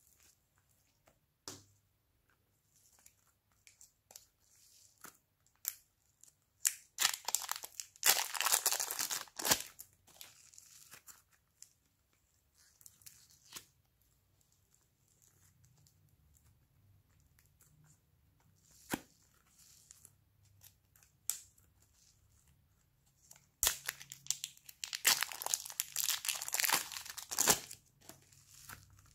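Soft clay being torn, pulled and pressed by hand onto slime: crackling, tearing sounds in two bursts of a few seconds each, about a quarter of the way in and near the end, with scattered small clicks between.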